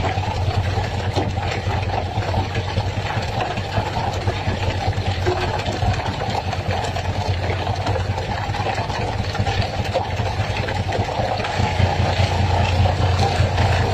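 Fishing boat's engine running steadily with a low, even hum.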